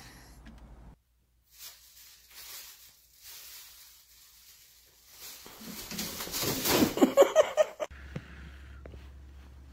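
Plastic grocery bag crinkling as a cat pokes its head into it. The rustling grows to a louder commotion between about six and eight seconds in, mixed with a pitched, voice-like sound.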